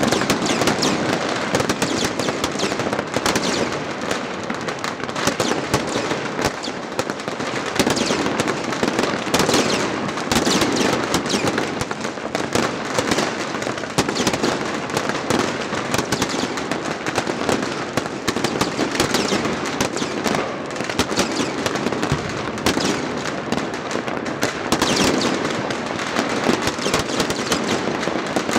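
Chinese New Year fireworks and firecrackers going off without a break: dense, overlapping bangs and crackling from many launch points at once, some close and some distant.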